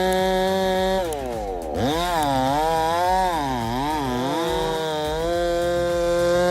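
Husqvarna 390 XP two-stroke chainsaw running at full throttle. About a second in, its pitch drops and wavers up and down as the chain bogs under load in the cut. After about five seconds it climbs back to a steady high rev.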